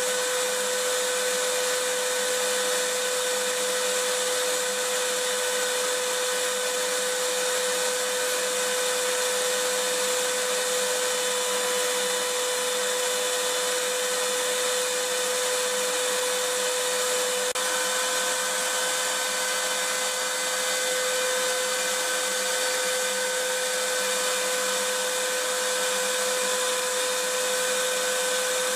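Vacuum cleaner running steadily: a continuous even rushing hiss with a steady motor whine under it.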